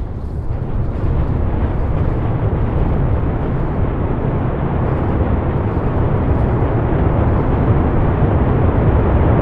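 SpaceX Super Heavy Booster 10's 33 Raptor engines firing during a static fire test: a loud, steady, deep rumbling noise. The engines performed perfectly.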